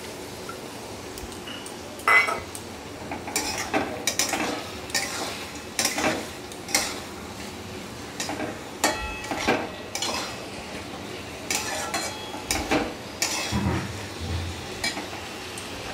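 Metal spatula scraping and knocking against a metal kadai while stirring soaked chana dal into a thick tomato-potato masala, in irregular strokes starting about two seconds in.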